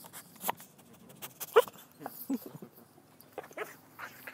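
Siberian husky whining in a few short, high whimpers about a second apart, the loudest about one and a half seconds in, with small clicks between them.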